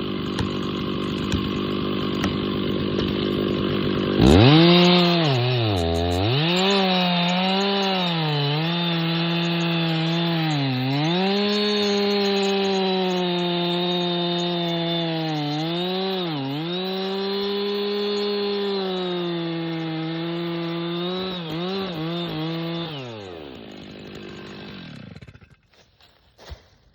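Stihl 066 two-stroke chainsaw idling, then opened to full throttle about four seconds in and cutting into chestnut oak, its pitch dipping again and again as the chain bogs under load. Near the end it drops back to idle and shuts off.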